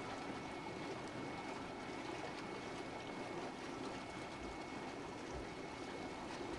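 Hot tub jets running, the water bubbling and churning steadily.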